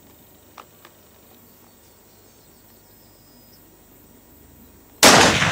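Faint outdoor background with a few small ticks, then about five seconds in a single loud rifle shot, most likely the .280 Ackley Improved centrefire, with a long echoing tail.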